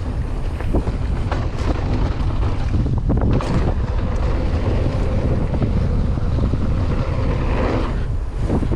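Wind buffeting the microphone of a mountain biker's camera while riding fast down a dirt trail, with tyre roar and short knocks and rattles from the bike over the ground.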